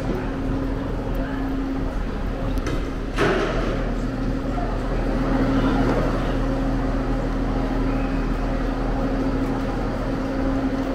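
Steady low hum of an East Midlands Railway Class 170 Turbostar diesel multiple unit idling, with a single thump a little after three seconds in.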